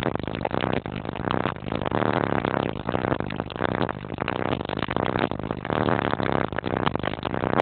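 High-power car audio system playing music with heavy bass.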